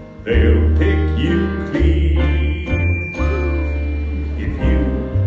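Live Broadway pit band playing, with deep held bass notes that change about every second under guitar and other instruments.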